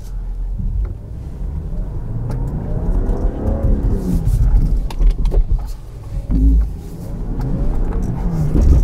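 2020 Land Rover Defender's engine working under load as the SUV crawls over rough off-road ground, its pitch rising and falling about three seconds in. A few short knocks sound over the engine.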